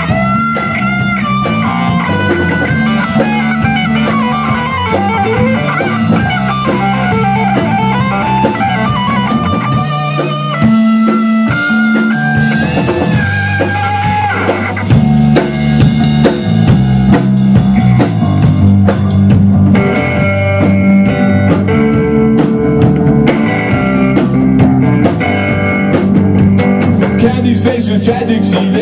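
Live rock band playing an instrumental stretch on electric guitars and a drum kit. A lead guitar line with bent, gliding notes is on top for the first half, and the band gets louder from about halfway.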